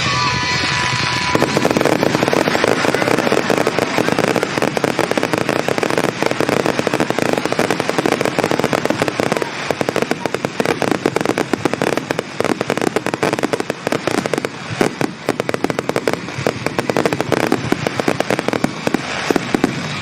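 Aerial fireworks barrage (starmine) crackling and popping densely and without a break; accompanying music ends about a second in.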